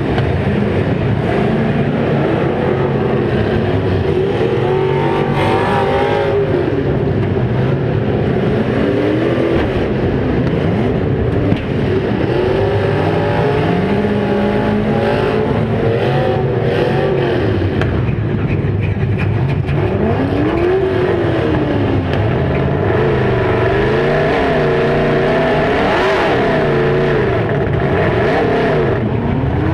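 Demolition derby car engines revving hard and dropping back over and over, several at once, in a loud continuous din.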